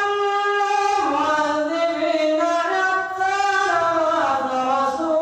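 An imam reciting the Qur'an aloud in a slow, melodic chant into a microphone, holding long notes that step up and down in pitch, with a short breath about three seconds in.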